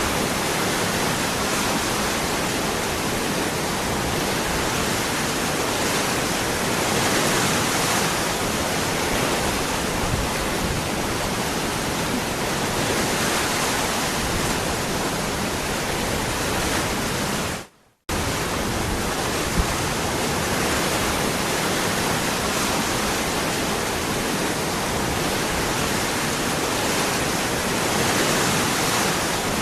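Waterfall rushing in a steady, even roar of falling water. It drops out abruptly for a fraction of a second about two-thirds of the way through, then resumes unchanged.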